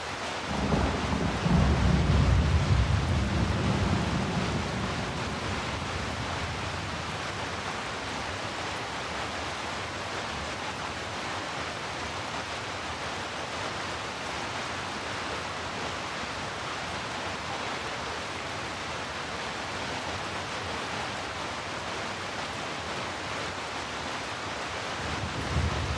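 Steady hiss of heavy rainfall. About a second in, a low rumble swells up, becomes the loudest sound, and dies away over the next few seconds; another low rumble starts near the end.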